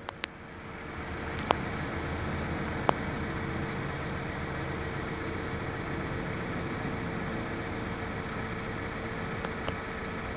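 An engine idling steadily, with a constant hum that grows louder about a second in; two sharp clicks come in the first few seconds.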